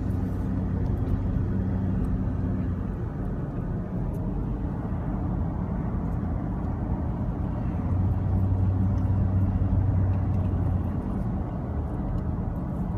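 Car driving, heard from inside the cabin: a steady low engine hum over road noise, swelling louder for a few seconds just past the middle.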